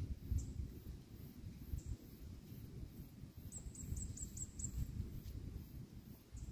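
High, thin chirps of a small bird. Single chirps come now and then, with a quick run of about six near the middle, over a low, uneven rumble of wind on the microphone.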